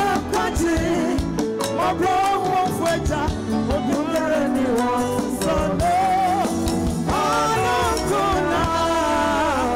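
Live gospel performance: a woman singing lead into a microphone over a live band with bass guitar and drums.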